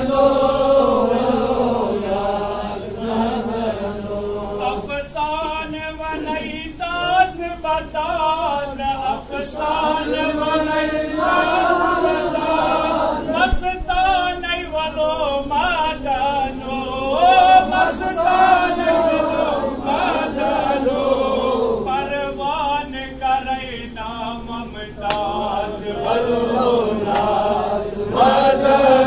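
Men's voices chanting a Sufi devotional kalam without instruments: a lead voice sings long, wavering, ornamented lines while other voices join in underneath.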